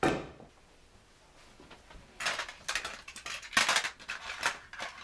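Plastic audio cassette tapes and their cases clattering and clicking as they are picked up and set down, in a run of quick rattles through the second half. A short thump comes right at the start.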